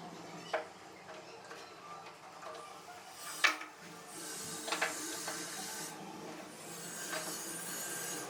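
Hand woodworking: a few sharp knocks and taps of wood being handled, the loudest about three and a half seconds in and a quick pair just after, with quiet rubbing or scraping between them.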